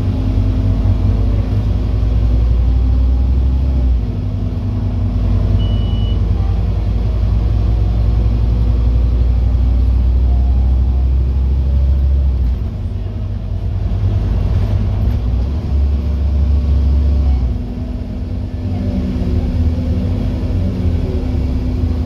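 Scania N230UD OmniCity double-decker bus's five-cylinder diesel engine running as the bus drives along, heard from inside on the upper deck: a steady deep rumble whose engine note falls away briefly about four, twelve and seventeen seconds in.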